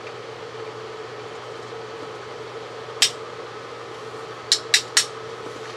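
Sharp small clicks of a tiny screwdriver and small screws being handled on a workbench: one click about three seconds in, then three quick clicks about a quarter second apart near the end, over a steady background hum.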